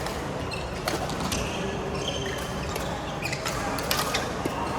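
Badminton rally: a few sharp racket hits on the shuttlecock, with short high squeaks of court shoes between them.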